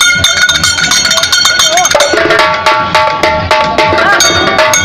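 Karadi majalu folk band: large karadi barrel drums beaten in a fast, dense rhythm, with metallic ringing from hand cymbals. A pitched melody line with sliding notes joins about two seconds in.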